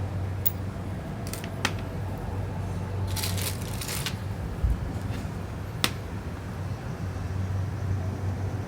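Small clicks and taps of tools and parts being handled during a phone repair, with a rustle lasting about a second around three seconds in and a dull thump shortly after, over a steady low hum.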